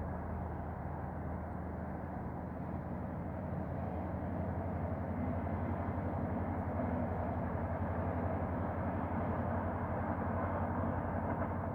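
Steady low rumble of a morning ambience recording with a low hum under it, growing slightly louder about four seconds in.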